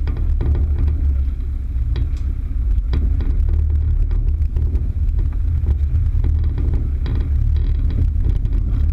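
Vehicle driving off-road: a steady low rumble with scattered knocks and rattles from the rough ground.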